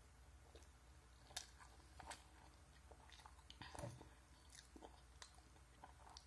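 Faint chewing of a mouthful of noodles, heard as scattered soft clicks and smacks. A utensil stirs in the ceramic bowl about four seconds in.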